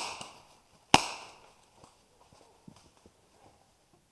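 Two airsoft gun shots about a second apart, each a sharp crack with a trailing echo that dies away.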